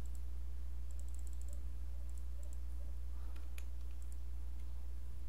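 Computer keyboard and mouse clicks: a quick run of keystrokes about a second in, then a few single clicks, over a steady low hum.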